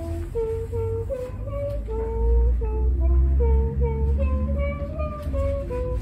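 Talking and singing plush bear toy playing a simple tune: a single melody of short, evenly held notes stepping up and down, with a low rumble underneath.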